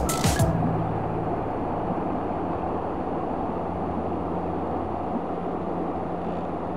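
Steady rush of a shallow, low-water river running over stones in a riffle, with a faint low hum underneath.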